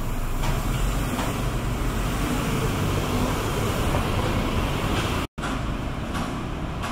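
City street ambience: a steady rumble of road traffic, cutting out for an instant about five seconds in.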